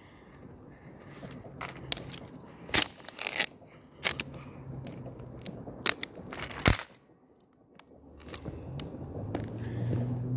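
Plastic parts of an Arlec EX25 250 mm exhaust fan being crushed and knocked on asphalt: a series of sharp cracks and knocks of brittle plastic with some crackling, the loudest about two-thirds of the way through. A low steady hum rises in near the end.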